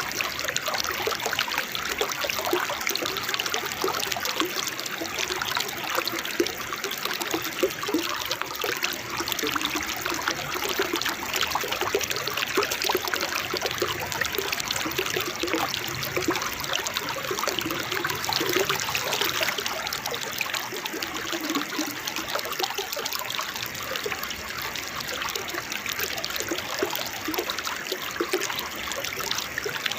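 A small forest waterfall and stream, water splashing and babbling in a steady rush with bubbling gurgles.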